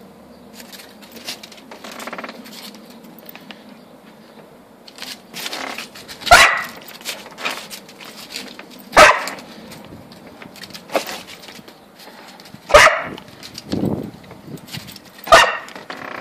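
A dog barking in single sharp barks a few seconds apart, starting about a third of the way in: four loud barks with a few quieter ones between. It is barking as it chases light reflections.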